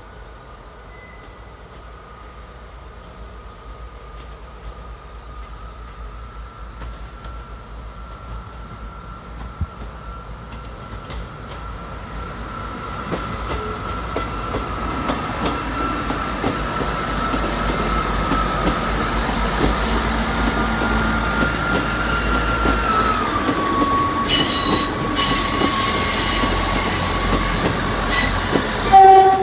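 South Western Railway diesel multiple unit approaching and running into the station, growing steadily louder as it nears. High-pitched metallic squealing sets in over the last few seconds as it passes, with a brief loud tone just before the end.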